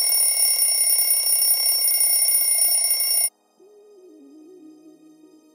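Loud steady alarm bell ringing that cuts off suddenly about three seconds in; a soft, quiet melody begins just after.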